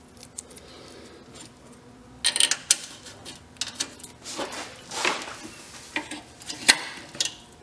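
Metal clinks, scrapes and small knocks of hand work on a car's radiator mount bracket as it is fitted back in place, starting about two seconds in, with the sharpest knock near the end.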